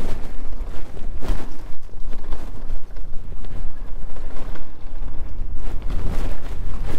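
Wind buffeting the microphone while the Eahora AM100 electric mountain bike is ridden over a bumpy dirt track, with scattered rattles and knocks from the bike over the bumps.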